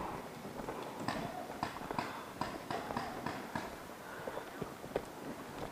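Running footsteps on dry forest-floor litter, about three quick steps a second, thinning to a few scattered steps after about three and a half seconds.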